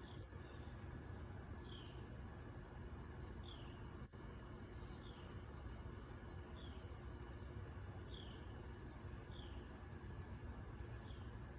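Insects singing: a steady high-pitched trill, with a short falling chirp repeating about every one and a half seconds, over a low background rumble.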